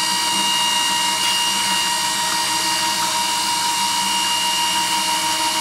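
ATV electric winch running steadily as it pays out its steel wire-rope cable, a constant motor whine with no change in speed.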